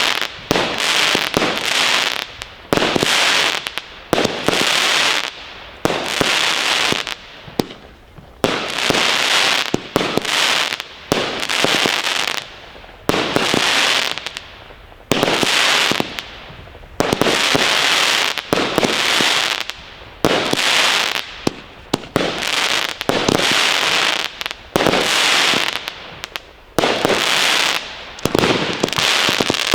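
Weco Power Up fireworks firing in quick succession: about fifteen loud bursts of hiss and crackle, each starting sharply and dying away within a second or so, with sharp cracks mixed in.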